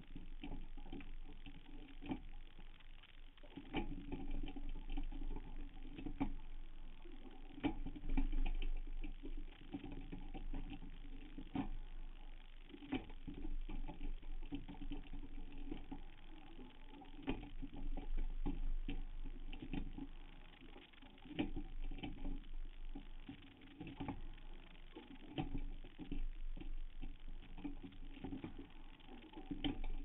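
Rowing sounds from a Hudson single scull under way: the sliding seat rolling and the oars knocking in their oarlocks, swelling and falling in a steady repeating rhythm with each stroke, over a low steady hum.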